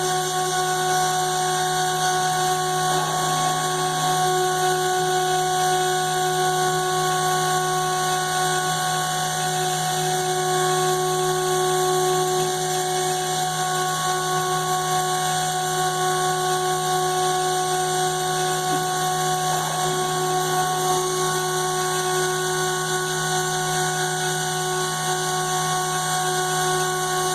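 CNC router spindle running steadily, a constant machine whine made of several steady tones over a hiss, as it cuts.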